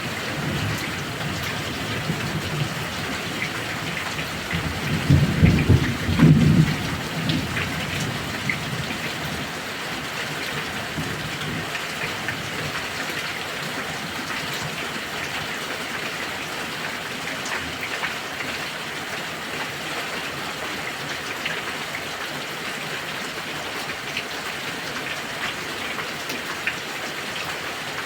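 Heavy rain falling steadily, with a rumble of thunder about five seconds in that swells and fades within a couple of seconds.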